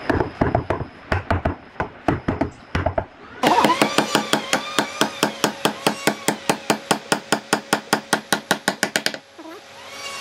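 Hammer knocking on a wooden joint of a log bench, in irregular strikes. About three seconds in this gives way to a fast, even run of knocks, about six a second, over a steady hum, which stops near the end.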